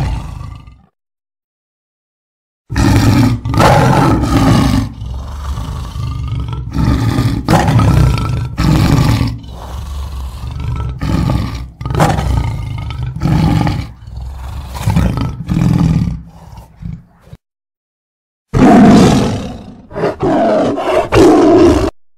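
Tiger roaring in a run of loud bursts, each with deep rumbling low end. The sound cuts to dead silence twice, near the start and about three-quarters of the way through, and then resumes with fresh roars.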